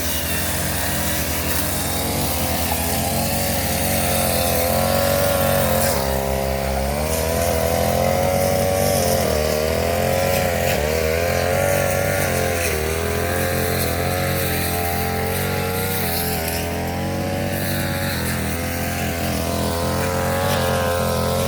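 Brush cutter engine running at high speed while cutting, its pitch wavering up and down as the load changes, with a deeper dip and recovery about six seconds in.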